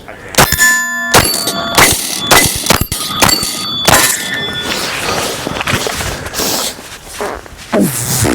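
A rapid string of rifle shots, roughly one every half second to second, with steel targets ringing out after the early shots. The firing thins out in the second half.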